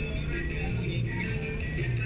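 Background music made of short held notes at several pitches over a steady low bass.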